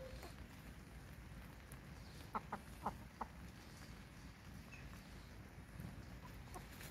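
Young game chickens clucking softly: a run of four short clucks about two to three seconds in.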